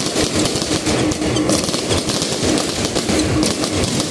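Aerial fireworks bursting overhead in a dense barrage: a continuous, rapid crackle of many small pops.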